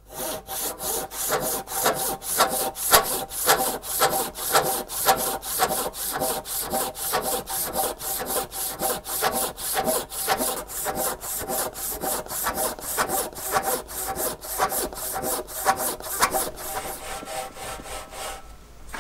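Hand saw ripping a rough softwood plank lengthwise: steady back-and-forth strokes, about three a second. The strokes stop abruptly near the end.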